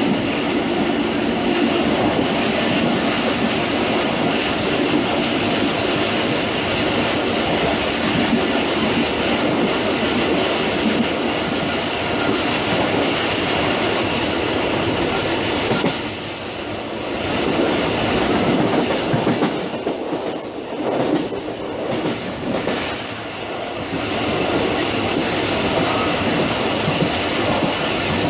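Pak Business Express passenger train running at high speed, heard from its rear: steady rumble and clickety-clack of wheels on rail. The noise drops and wavers for several seconds past the middle, then returns to its steady level.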